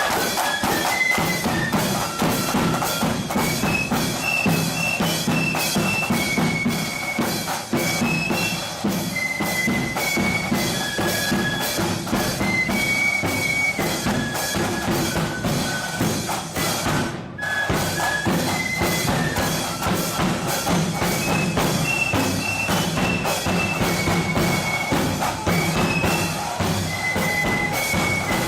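Blood-and-thunder flute band playing a march: massed flutes carry a high melody over rapid, continuous drumming with bass drum. About two-thirds of the way through the music breaks off for a moment, then the tune starts over.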